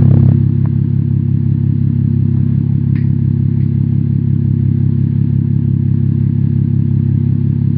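Audi S4's supercharged 3.0 TFSI V6 running through a Fi Exhaust catless downpipe and valved cat-back with quad tips: loudest at the very first instant, then a steady, deep idle with no revving.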